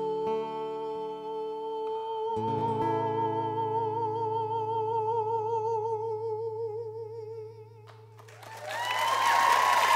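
A male tenor holds one long, high final note, its vibrato widening, over an acoustic guitar chord strummed about two seconds in and left to ring. The note and chord die away near eight seconds, and then the studio audience bursts into applause and cheering.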